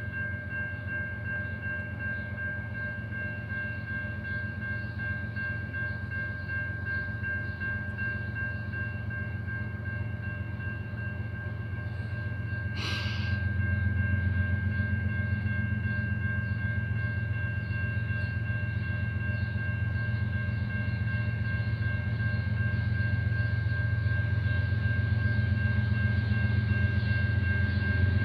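Railroad crossing warning bell ringing steadily over the low rumble of an approaching train, which grows louder. A brief hiss comes about halfway through.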